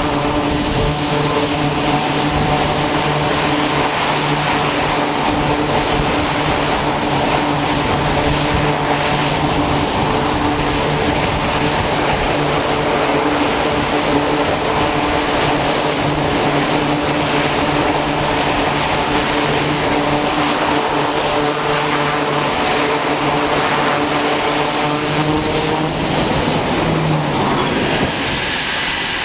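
C-2A Greyhound's twin turboprop engines running at high power on the carrier catapult, a loud steady propeller drone over a rushing roar. Near the end the aircraft is launched and the drone cuts off.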